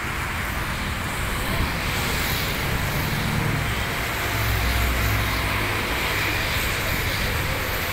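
Steady distant jet-engine noise from an Emirates Boeing 777 on the runway, with a low rumble that swells about halfway through, blended with outdoor traffic noise.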